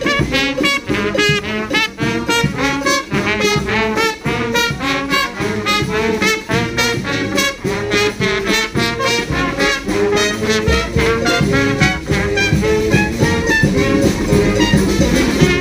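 Community brass street band playing a New Orleans-style brass-band tune: many horns together over a steady drum beat.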